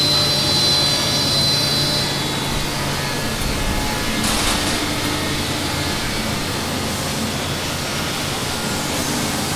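Steady machine noise of a guitar-body wood shop: dust-collection ducting and woodworking machinery running, with a constant low hum. A high whine fades out about two seconds in, and a brief hiss comes about four seconds in.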